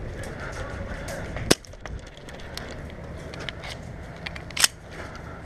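Airsoft gunfire at close range: two sharp cracks about three seconds apart, with a few fainter ticks between them.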